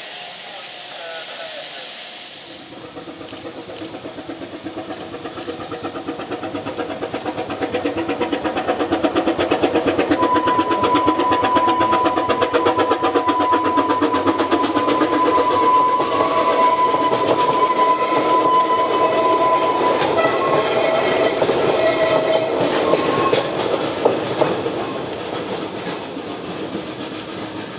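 Narrow-gauge steam locomotive hauling a train past. A soft steam hiss gives way to rapid exhaust beats and wheel noise that build to a peak in the middle and fade as the train goes by. A steady high-pitched tone is held for about ten seconds during the loudest part.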